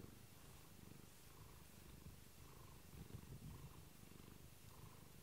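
Domestic cat purring softly close up, a low, even rumble that swells and eases with each breath.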